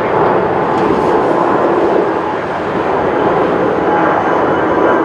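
Jet engines of a twin-engine airliner climbing out after takeoff: a loud, steady rushing noise, with a faint whine coming in near the end.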